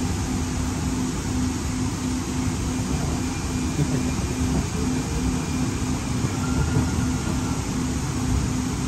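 Siemens LRV4 light rail car heard from inside the cabin while under way: steady rumble of the running gear on the rails with a steady low hum. A faint, brief whine comes in about six and a half seconds in.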